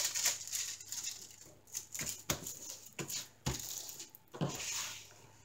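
Clear plastic film over a diamond painting canvas crinkling as hands smooth the canvas and turn it on a wooden table, with several light taps and knocks along the way.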